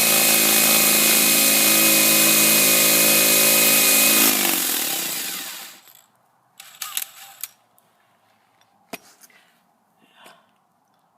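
Power drill running steadily at full speed while boring into the steel of a deadbolt, then released about four seconds in, its motor winding down in pitch to a stop by about six seconds. A few light clicks and knocks follow.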